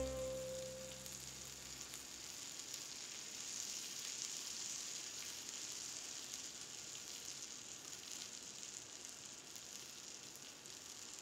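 A pat of vegan butter sizzling as it melts in a hot black skillet: a faint, steady hiss with fine crackles. The last notes of music die away in the first two seconds.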